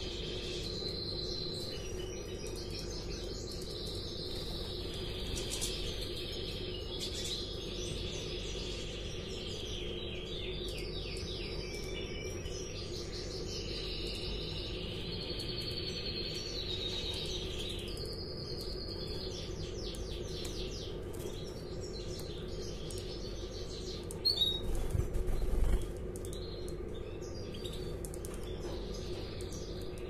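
Red colour-canary hens chirping and calling, with high short notes and quick trills, over a steady low hum. About twenty-four seconds in, a loud burst of noise lasts about a second and a half.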